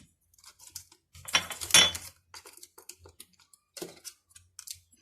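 Kitchen handling noises as vegetables are packed into a jar for pickling: a few light knocks and rustles, with a louder clatter about one and a half to two seconds in.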